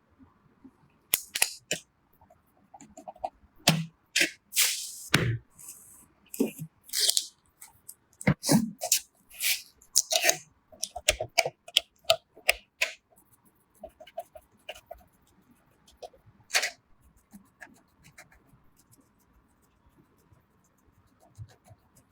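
Irregular clicks, knocks and short scrapes of computer parts being handled and fitted together. They come thick and fast for the first dozen seconds, then thin out to a few isolated taps.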